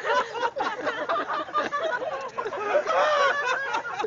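Several people's excited voices, laughing and shouting over one another without clear words.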